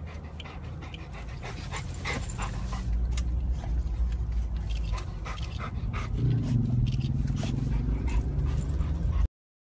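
Golden retriever panting, quick breathy huffs over the steady low rumble of a car cabin on the move. A low wavering sound rises and falls in the last few seconds, then everything cuts off abruptly.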